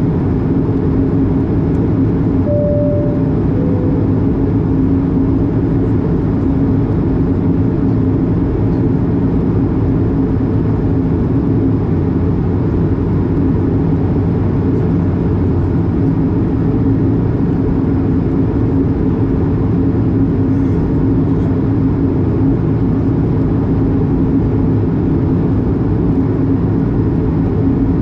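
Steady cabin noise of an Airbus A220 in flight, heard inside the cabin beside the wing: an even rush with a low hum from its Pratt & Whitney PW1500G geared turbofan. About three seconds in, a short two-note falling chime sounds once.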